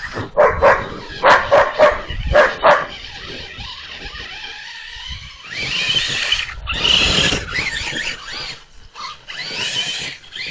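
A dog barking about six times in quick succession in the first three seconds, followed by a longer, noisier stretch that rises and falls in pitch.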